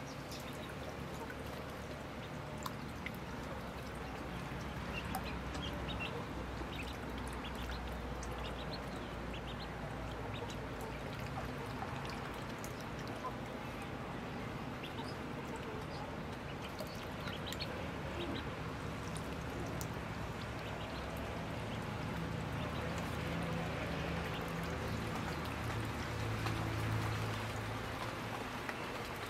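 A group of ducklings peeping continually as they swim in a tub of water, with small water splashes over a steady background hiss.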